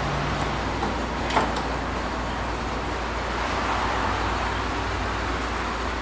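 Steady background noise with a low hum, and one sharp click about a second and a half in, from hands working the lock and handle parts inside a BMW E39 car door.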